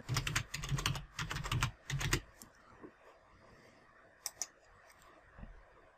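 Typing on a computer keyboard: a quick run of key presses for about two seconds. Then a single mouse click a little past four seconds in.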